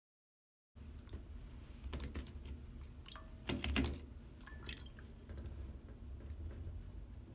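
Sardines being handled and rinsed by hand in a glass bowl of water: small splashes, drips and clicks, starting under a second in and loudest a little past halfway.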